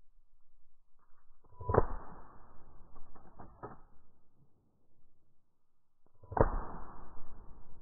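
Two shotgun shots about four and a half seconds apart, each a sharp report with a tail that fades over about a second. Two lighter knocks fall between them.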